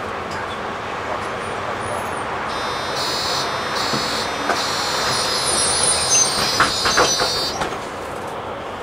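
City bus running on the road: steady engine and road noise inside the cabin. A high-pitched whine comes in about a third of the way through and stops shortly before the end, and a few knocks and rattles come near the end of the whine.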